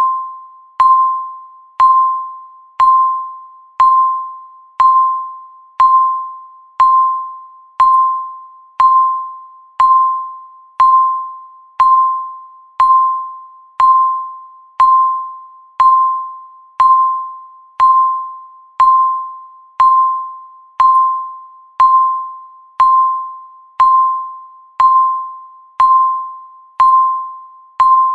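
Countdown timer beeping once a second: a single mid-pitched electronic tone that starts with a sharp click and fades away before the next beep, in an even, unbroken rhythm.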